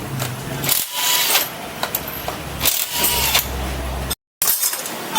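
Small metal parts clinking and tools knocking against them as a Yamaha Mio 125 scooter's transmission gears and bearings are handled during disassembly. The sound cuts out briefly near the end.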